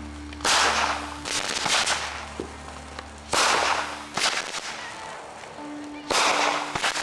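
Consumer fireworks going off in three big blasts about three seconds apart, each a sudden bang trailing off in a crackling hiss, with smaller cracks between them.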